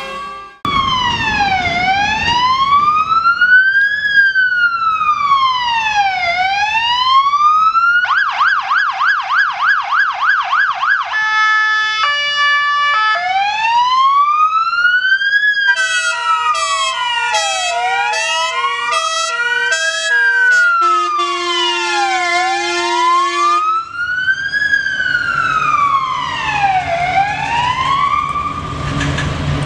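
Scania P410 fire engine's siren cycling through its modes: a slow rising and falling wail, switched about eight seconds in to a fast yelp, then a short stepped two-tone passage and back to the wail. Around the middle its air horns sound in pulsed multi-tone blasts over the wail, and near the end the truck's diesel engine comes up under the siren as it passes.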